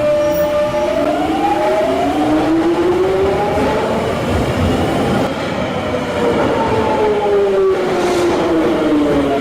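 London Underground Jubilee Line 1996 Stock train's traction inverters and motors whining, the pitch sweeping up, then down, then up again in repeated glides over the rumble of the train.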